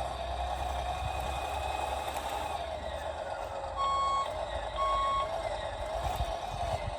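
Radio-controlled model construction vehicle running with a steady, wavering motor whine, and two short reversing beeps a little past the middle.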